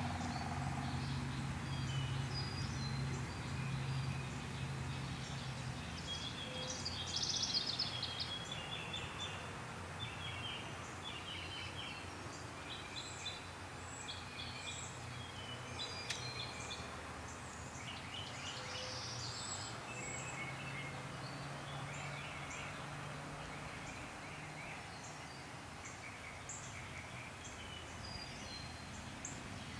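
Outdoor ambience: small birds chirping and calling on and off throughout, over a low steady hum that swells during the first few seconds and again about two-thirds of the way through.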